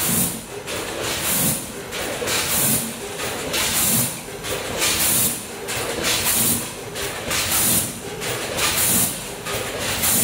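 Vertical packing machine under a multihead weigher running through its bagging cycle, a sharp burst of compressed-air hiss from its pneumatic cylinders repeating about every 1.2 seconds over a steady mechanical running noise.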